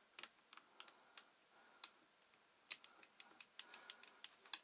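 Faint, irregular light metallic clicks and ticks of a micro lathe's small handwheels and slides being adjusted by hand, about a dozen spread unevenly.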